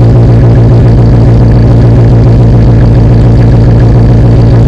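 1998 Jeep Grand Cherokee ZJ's 5.2-litre Magnum V8, bored out to 5.3 litres, idling steadily while warming up after a cold start. It runs through long-tube headers with no catalytic converter and a 3-inch exhaust with a Flowmaster Super 44 muffler, its cutout closed. The exhaust gives a loud, deep, even drone.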